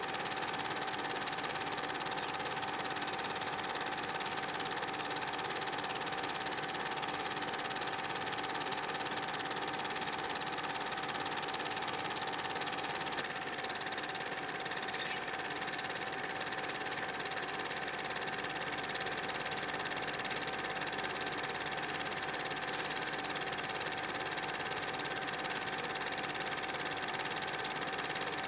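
Steady mechanical whirr of an 8mm film projector running, with a constant hum that holds one pitch.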